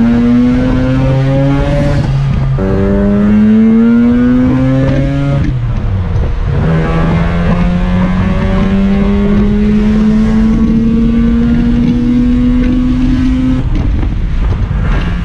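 Rotary engine of a rotary-swapped pickup truck accelerating through the gears, heard from inside the cab. The engine note climbs, breaks at upshifts about two and a half and five and a half seconds in, then rises more slowly in a long pull until the throttle comes off near the end.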